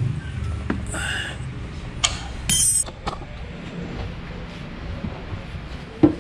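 Scattered clinks and knocks of tools and items being handled in a plastic tray, with a brief rattling scrape about two and a half seconds in and a pair of thumps near the end.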